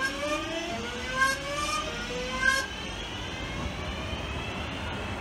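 Class 323 electric multiple units (323 208 and 323 222) pulling out, their traction motors giving a rising, stepped whine for about the first two and a half seconds, then the steady rumble of the carriages rolling past.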